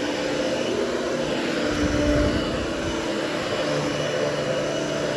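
Hoover Hushtone 13-inch upright vacuum cleaner running steadily as it is pushed over carpet.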